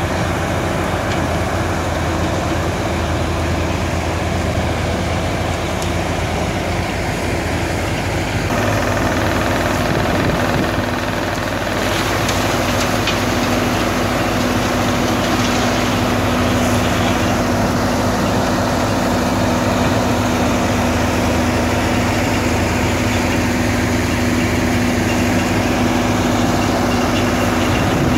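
Beyer mobile tracked sand screening plant running, its diesel engine droning steadily with the rattle of the vibrating screen and conveyors, as an excavator feeds sand into the hopper. A steady hum joins about eight seconds in.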